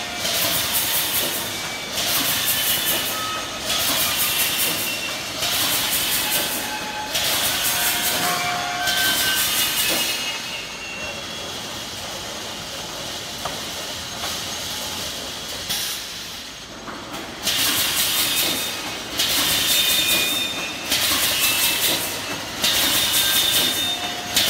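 Automatic wire mesh welding machine running in cycles: a burst of hiss and clatter about every second and a half over a steady machine noise. The cycling stops for several seconds about halfway through, then starts again.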